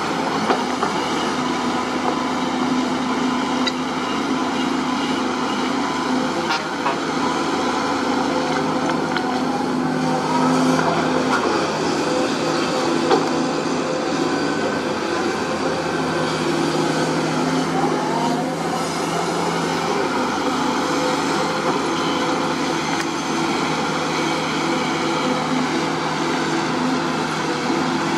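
Sunward SWE210 hydraulic excavator's diesel engine running steadily under digging load, its pitch rising and falling a few times as the hydraulics work. A few short sharp knocks as the bucket works rocky soil.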